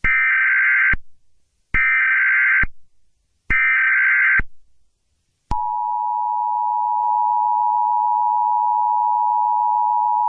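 Emergency Alert System header tones: three short bursts of warbling digital data tones, each just under a second long. Then, about halfway through, the steady, harsh two-tone EAS attention signal comes in and holds, announcing an alert message.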